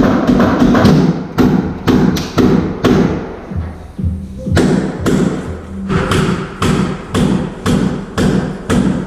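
Background music with a steady thumping beat, about two beats a second.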